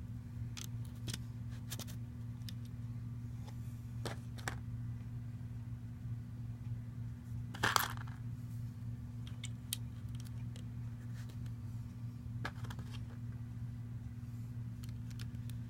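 Scattered light clicks and taps of small hard objects being handled, with a louder brief cluster about halfway through, over a steady low hum.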